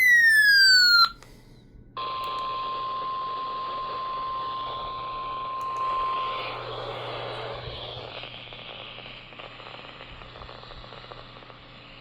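An electronic alert tone sweeps sharply downward in pitch for about a second and is the loudest sound. After a short silence comes radio static hiss carrying a thin, steady NOAA Weather Radio 1050 Hz warning alarm tone, which stops about six and a half seconds in while the hiss carries on more quietly.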